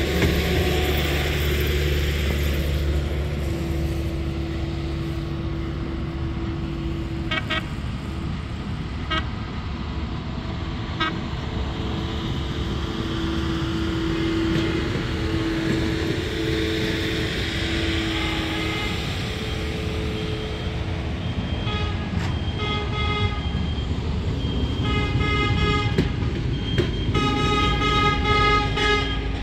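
Diesel engines of maintenance-of-way track machines rumbling as they approach along the rails, with an engine drone that rises and falls. Short, sharp warning tones sound a few times around the middle and then come thick and fast over the last several seconds.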